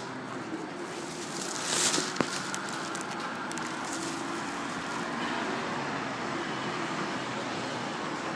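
Steady outdoor background noise, with a brief loud hiss a little under two seconds in and a sharp click just after it.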